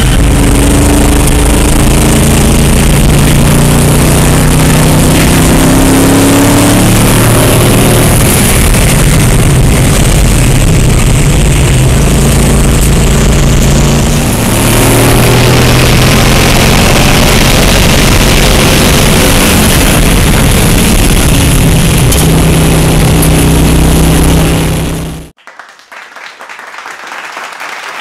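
Ultima GTR's V8 engine at full load, recorded on board: the pitch climbs through the revs and drops at each gear change, over and over. About 25 seconds in it cuts off suddenly, and applause follows.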